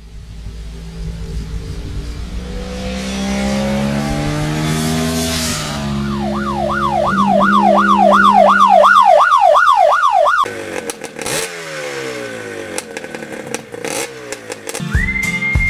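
A motorcycle engine revving, its pitch rising and falling. It builds to a fast run of blips, about two a second, then cuts off sharply about ten seconds in, leaving scattered clicks. Near the end a steady high tone comes in.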